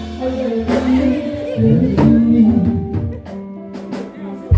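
Church praise music: singing over instruments, with a few drum hits.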